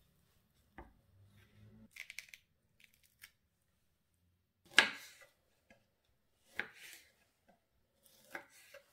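Scattered knocks and clicks of food preparation in a kitchen, the loudest a sharp knock about five seconds in.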